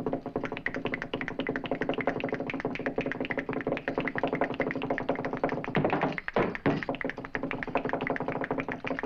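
Spurred boot heels stamping out a fast flamenco zapateado, a rapid run of sharp taps with a short break about two-thirds through, over sustained flamenco-style music.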